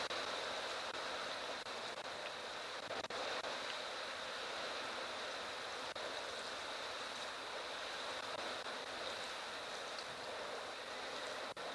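Strong wind rushing through dry savannah grass and bush in a dust storm: a steady hiss with no gusting breaks.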